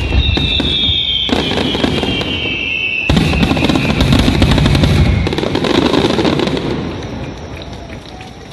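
Fireworks display: a rapid string of aerial shell bursts with dense crackling, a bigger burst of crackle about three seconds in, then the crackling dies away.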